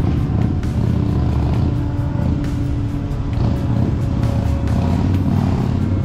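Steady low rumble of city car traffic, with music playing over it.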